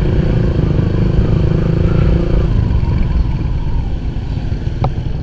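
Motorcycle engine running while riding, with a steady rumble of wind and road noise; its pitched engine note falls away about halfway through.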